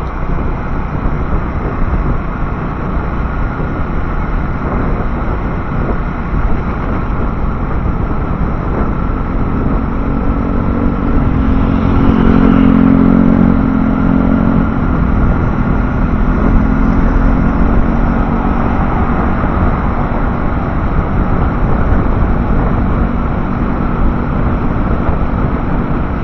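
Ride noise from a motorcycle on a city road: steady wind rush on the microphone with engine and tyre noise. Near the middle an engine hum swells louder for a few seconds, then settles.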